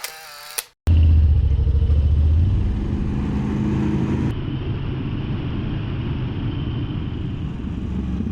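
Motorcycle engine running with road and wind noise as the bike rides, cutting in abruptly about a second in. It is loudest for the first couple of seconds, then settles to a steady, slightly lower rumble.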